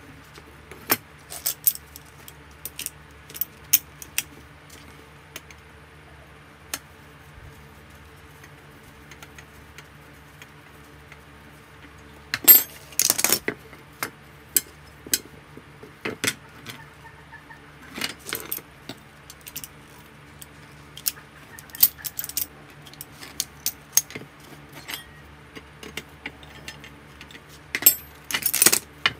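Steel rods clinking and rattling against each other as they are handled and fitted together by hand, in scattered clusters of sharp metallic clicks, the loudest about twelve seconds in and again near the end. A steady low hum runs underneath.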